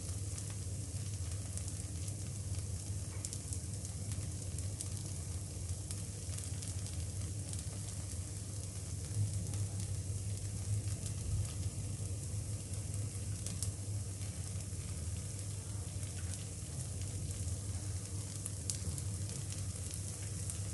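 Dosa batter, butter and grated cheese sizzling gently in the cups of a cast appe (paniyaram) pan over a gas flame: a steady soft hiss with faint crackles over a low steady hum.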